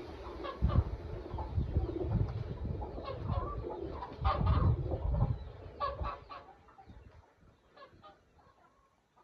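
Chickens clucking, with low thuds and sloshing from thick corn batter being stirred with a long spoon in a plastic basin. Both die down after about six seconds.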